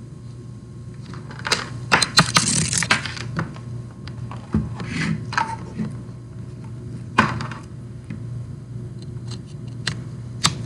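Small hard objects being handled on a desk: a burst of clicks, rattling and scraping between about one and three and a half seconds in, then a few separate clicks, over a steady low hum.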